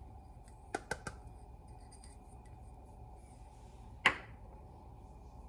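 Light clicks and knocks from kitchen utensils being handled at the cooking pot: three quick taps about a second in, and one sharper knock with a brief ring a little after four seconds, over a low steady hum.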